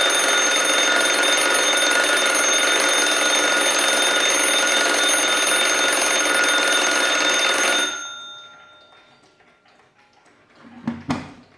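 Alarm bell of a Waterbury 'Gothic' model clock ringing loud and steady as the hammer rapidly strikes the bell, then stopping suddenly about eight seconds in, the bell tone fading over a second. A short knock near the end.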